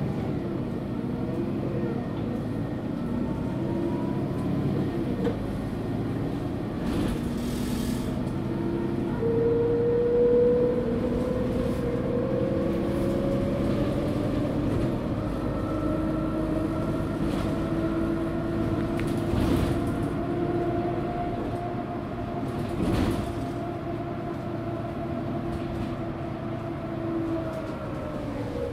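Mercedes-Benz Citaro G bus under way, its OM457 diesel running steadily under load. From about a third of the way in, the ZF Ecomat automatic gearbox adds a whine that climbs slowly in pitch as the bus gathers speed, then falls away near the end. There are a few short knocks from the ride.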